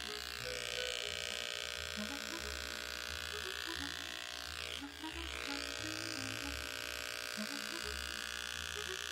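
Corded electric hair clipper buzzing steadily as it shears hair close to the scalp, dipping briefly in pitch about halfway through.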